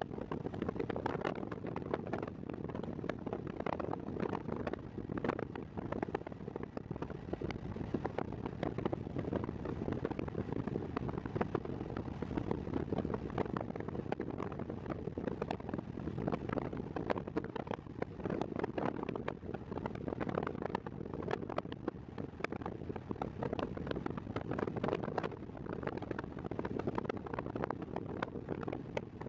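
Steady road and wind noise of a vehicle driving on a highway at speed.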